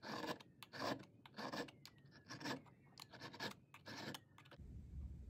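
A hand file rasping across a steel Galil bolt's locking lug in short, evenly spaced strokes, about one every two-thirds of a second, stopping about four and a half seconds in. The file is taking material off the lug's leading edges where marking compound showed contact, to force-match the bolt.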